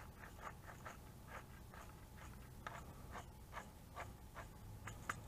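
Hand-twisted pepper mill grinding peppercorns, a faint run of short crunching clicks, about two or three a second.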